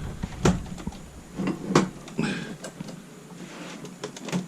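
Several short clicks and knocks from the power supply of an Alienware Aurora R6 desktop computer being unlocked and worked loose from the case.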